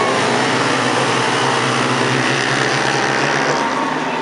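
A pack of ice speedway motorcycles racing together, their 500 cc single-cylinder engines buzzing at high revs, easing a little toward the end as the bikes pull away.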